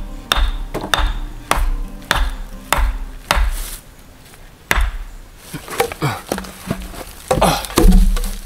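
A hatchet knocking on a wooden stake, driving it into the ground. The strikes come evenly, a little under two a second, for the first few seconds. After a brief pause they turn irregular.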